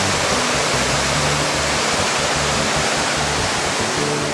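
Swollen, muddy creek in flood rushing and churning past a bridge culvert: a loud, steady rush of fast water.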